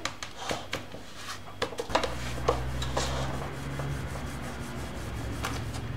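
Back of a spoon pressing and scraping buttered digestive-biscuit crumbs flat against baking paper in a metal springform pan: a run of gritty rubbing scrapes and small clicks. A low steady hum comes in about two seconds in.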